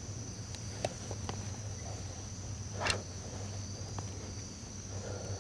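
Insects trilling in a steady, high, unbroken chorus, with a few faint ticks and one short rustle about three seconds in.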